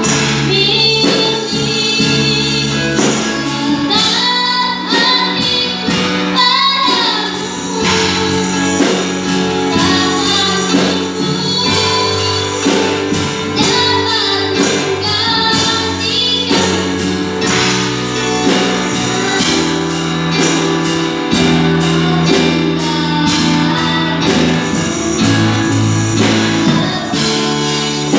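A song: a voice singing a wavering melody over steady instrumental accompaniment.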